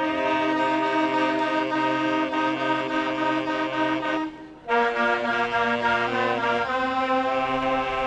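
Saxophone ensemble playing in harmony: a long held chord that breaks off about four seconds in, then after a brief gap a new chord with moving notes.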